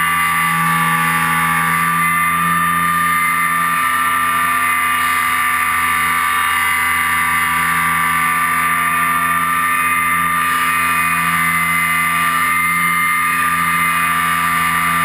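RC airplane's motor and propeller running steadily in flight, heard on board with rushing wind: a constant high whine, with a lower tone that drifts slowly up and down in pitch.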